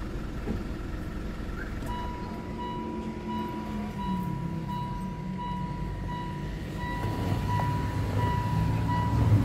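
A Mitsubishi Pajero Sport's dashboard warning chime beeps evenly, about twice a second, starting about two seconds in. The cluster shows the steering wheel unlocked with the engine off. Under it is a low traffic rumble that grows louder near the end.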